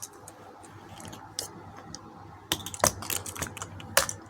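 Sharp plastic clicks and taps from a TV remote being handled and worked apart, about half a dozen, scattered, the loudest near the end.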